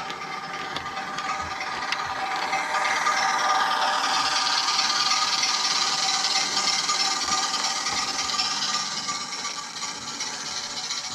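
OO gauge model diesel shunter running along the track, its motor whirring and wheels rattling on the rails. The noise grows louder as the locomotive passes close by and fades as it runs away.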